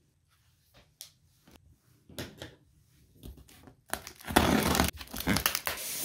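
Packing tape ripped open along the seam of a cardboard shipping box: a few light taps and rustles at first, then a long, loud rip about four seconds in and a second rip near the end.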